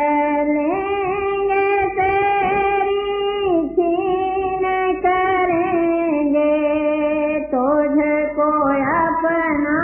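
A singer chanting a line of a devotional hymn in long drawn-out notes that step up and down in pitch.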